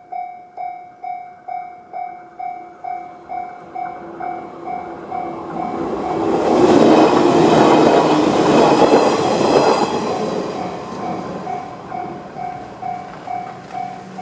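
Japanese level-crossing electronic warning bell (JR standard tone) ringing as an evenly repeated ding, about two and a half strikes a second. A Shinano Railway 115 series electric train passes through from about five seconds in, loudest between about seven and ten seconds, with its wheels clacking over the rail joints. The bell rings on after the train has gone.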